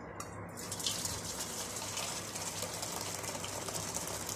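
Hot water pouring from a kettle into a metal basin: a steady splashing gush that starts about half a second in.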